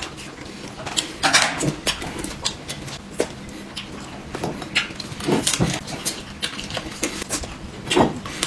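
Eating and table noises: short clicks and knocks at irregular intervals, with mouth sounds of chewing.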